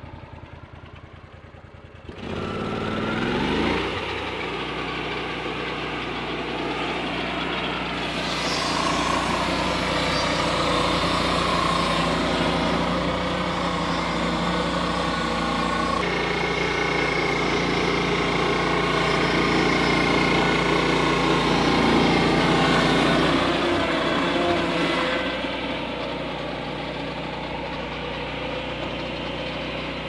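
Portable Lucas circular-blade sawmill driven by a Kohler Command PRO engine. The engine revs up about two seconds in, then the blade cuts through the log for about fifteen seconds, a harsher, higher sound over the engine. The cut ends near the end and the engine keeps running at speed.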